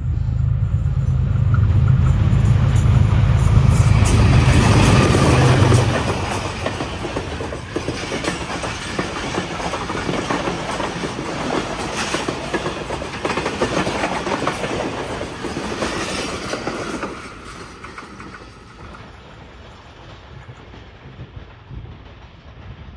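Passenger express train running through at speed behind a GE U20 diesel-electric locomotive. A deep engine rumble drops away about six seconds in, then the coaches' wheels clatter over the rail joints, fading over the last few seconds.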